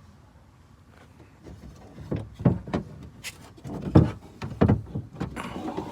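Irregular knocks and clatter of a new door lock actuator being worked into the inside of a 2006 Cadillac DTS door. The part bumps against the door frame, and the heaviest knock comes about four seconds in.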